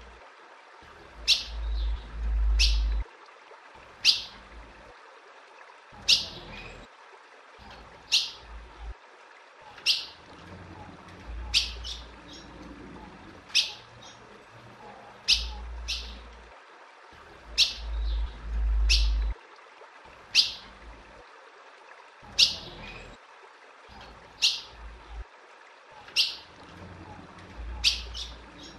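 Female ultramarine grosbeak (azulão) repeating a sharp call note about every one to two seconds, each call a quick downward sweep. A low rumble comes and goes beneath the calls.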